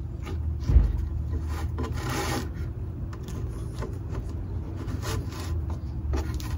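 Synthetic rope being pulled through holes drilled in a wooden drawer front, rasping against the wood in a few short drags, the longest about two seconds in. A thump just under a second in.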